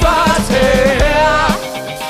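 Live pop-funk band playing: a male and a female singer hold a sung line together with vibrato over drums, bass, electric guitar and keys. The voices break off about one and a half seconds in while the band keeps playing.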